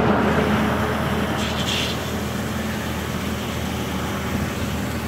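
Heavy machinery engine running steadily at a constant pitch while the pipe is being pulled in.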